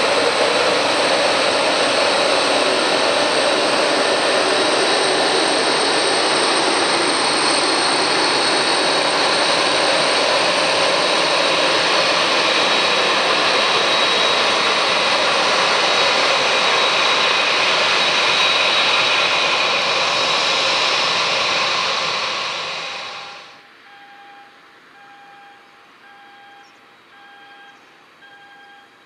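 Twin jet engines of a JAL Boeing 767-300ER running steadily and loudly, with a high whine over the roar. The sound cuts off about 23 seconds in, and faint electronic beeping repeats at an even pace after it.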